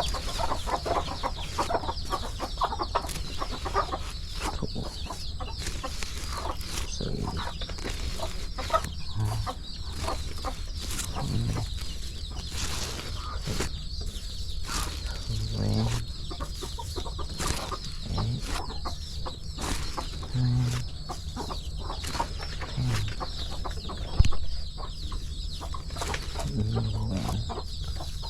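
Chickens clucking, with short low clucks scattered throughout and many small clicks, and one sharp knock about three quarters of the way through.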